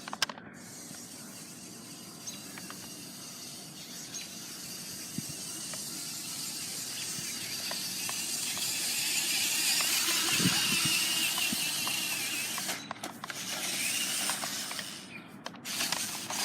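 Four-wheel-drive RC car's motor whining as the car drives, its pitch wavering, growing louder to a peak about ten seconds in and then dropping out briefly twice near the end.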